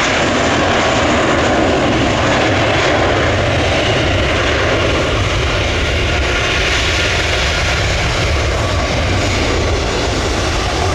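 Jet airliner's engines running loud and steady close by: an even rushing noise with a deep rumble underneath.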